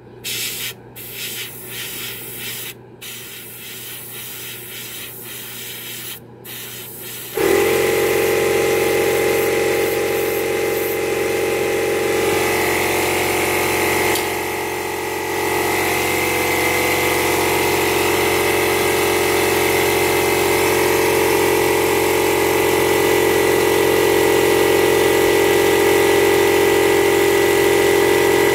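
Airbrush spraying in short hissing bursts with gaps between. About seven seconds in, an air compressor motor starts suddenly and runs steadily with a hum of several fixed tones under the hiss.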